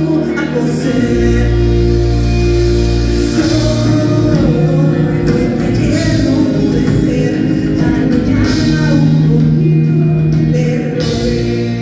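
Rock band playing a song, with a voice singing over the band.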